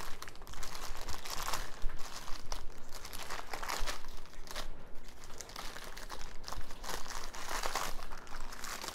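Clear plastic bag crinkling and rustling irregularly as it is unwrapped from a packaged item by hand.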